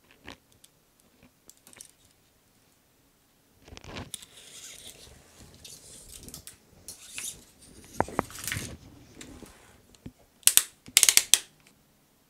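Bicycle shift cable being threaded through a twist grip shifter: soft scraping and rustling of the wire and parts being handled, then a quick cluster of sharp clicks near the end.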